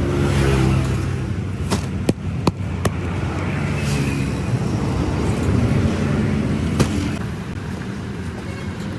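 Road traffic: motor-vehicle engines running and passing, with a few sharp knocks about two seconds in and another near the end.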